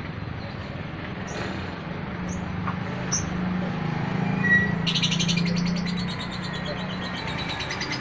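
Lovebird calling: a few short high chirps, then from about five seconds in a fast, continuous chattering trill. A low steady hum runs underneath, louder in the middle.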